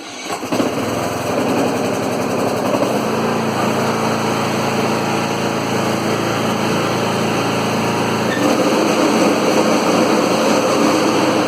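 Riding lawn mower engine catching and running steadily, growing a little louder about eight seconds in; the mower is being run to test a newly replaced blade engagement cable.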